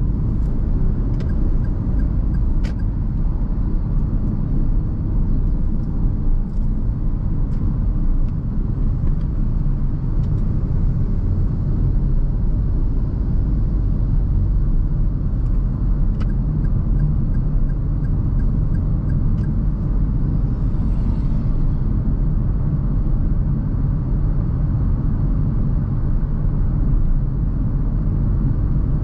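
Steady low rumble inside the cabin of a 2021 Perodua Ativa 1.0 Turbo while driving: road and engine noise, with a few faint ticks.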